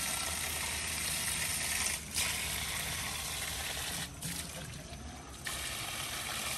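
Cold spring water running and splashing as a chicken is washed in it. The flow sound dips briefly about two seconds in, and again for about a second and a half near the middle.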